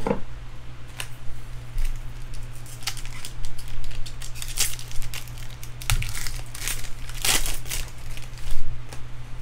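Foil wrapper of a Bowman Draft jumbo baseball card pack being torn open and crinkled by hand, in a run of sharp crackles, loudest about halfway through and again near the end.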